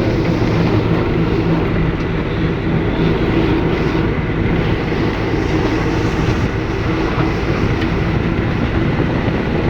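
Steady, continuous running noise of a moving vehicle, a low hum under a rumble.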